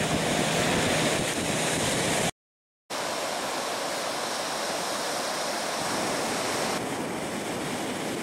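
Ocean surf breaking and washing up on a sandy beach, a steady rushing noise. The sound drops out completely for about half a second a little over two seconds in, then the surf carries on.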